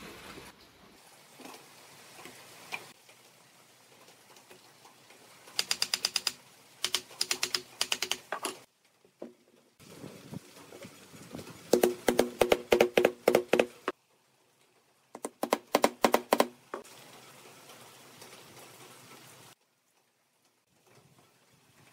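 Three bursts of rapid, sharp taps on wooden cart parts fitted to a steel axle rod, each tap with a short ringing note. Faint workshop background lies between the bursts.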